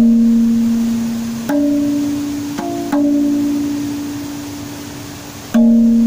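Background music of slow, single plucked-string notes, each struck sharply and left to ring and fade, five notes in six seconds.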